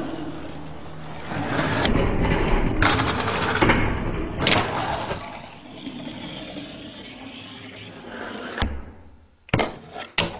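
A rushing, scraping noise with a few sharp clicks, then near the end several hard knocks and clatters as chess pieces are knocked over.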